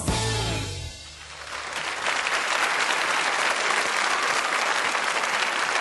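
A live band's final chord rings out and fades over the first second, then audience applause builds and carries on steadily.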